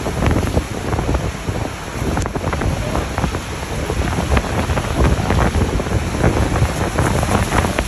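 Wind buffeting the microphone in gusts over a steady rush of water below a waterfall at close range.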